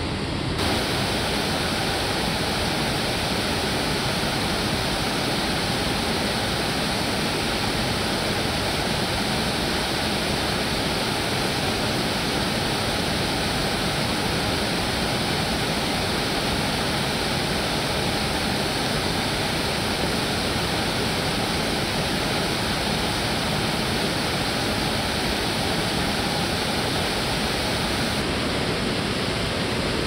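Steady rushing of water falling over a river waterfall. The hiss in the highs comes in about half a second in and drops away again near the end.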